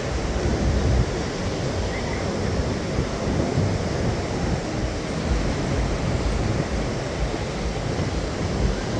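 Strong wind buffeting the phone's microphone with a low rumble, over the steady wash of ocean surf.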